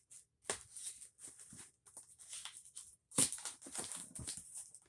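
Packaging crinkling, rustling and crackling as a parcel is handled and opened by hand, in irregular bursts, loudest about three seconds in.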